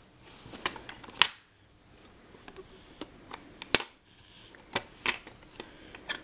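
Scattered clicks and knocks of the latches and little doors on a child's latches board being worked open, with sharp clicks about a second in and again near four seconds.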